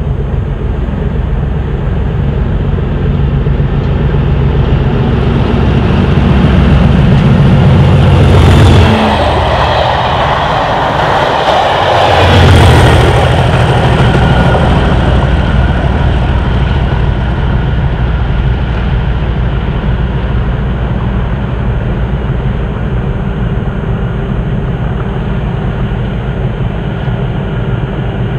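Two Class 37 diesel locomotives, each with an English Electric V12 engine, hauling a short test train past at speed, one at each end. The leading loco's engine grows louder and passes about nine seconds in. The coaches' wheels rumble by for a few seconds, then the rear loco's engine passes and its running slowly fades away.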